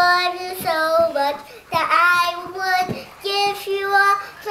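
A young child singing, holding long drawn-out notes in phrases with short breaks between them.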